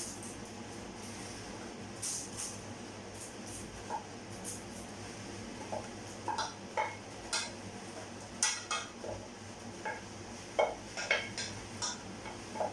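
Spoon knocking and clinking against a pan and serving dish as bolognese sauce is spooned over the pasta. The clinks are scattered and come more often in the second half.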